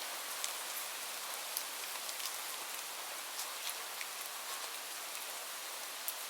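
Steady rain falling, an even hiss with a sharper single drop ticking every second or so.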